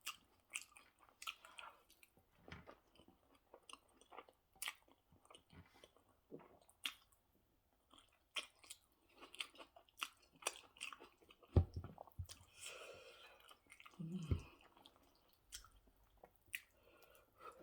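Close-up mouth sounds of a person eating rice and goat stew: irregular wet chewing, lip smacks and small clicks, with a few low thumps about two-thirds of the way through.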